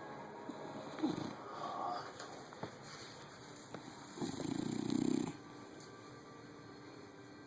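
A pet snoring: a short snore about a second in, then a longer, louder one of about a second starting around four seconds in.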